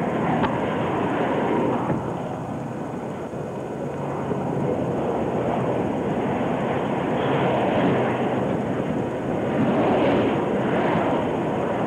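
Highway traffic going by: a steady rush of tyres and engines that swells twice in the second half as vehicles pass.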